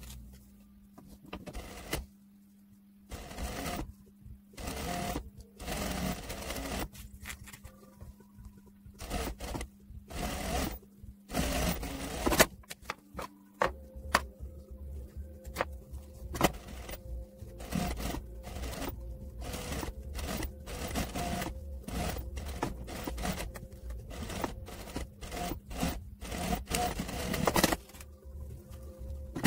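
Juki industrial sewing machine at work on fine lace and tulle, sped up four times: irregular short clicks and runs of stitching, with the fabric being handled, over a steady motor hum.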